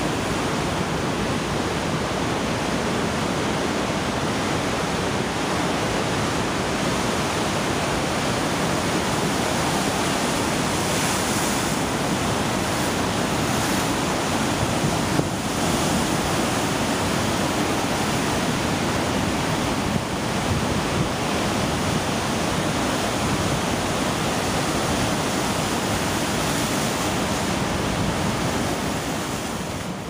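Pacific Ocean surf breaking over rocks and washing up a sandy cove: a steady, even rush of waves and foam, easing slightly near the end.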